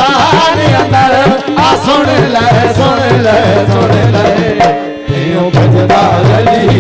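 A man sings a devotional qasida into a microphone over a steady hand-drum beat. The music drops briefly about five seconds in, then comes back.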